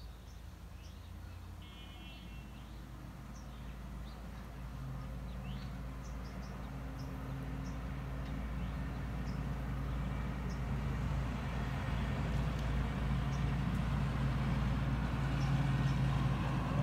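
A motor engine running steadily and growing louder throughout as it approaches, with faint short chirps high above it.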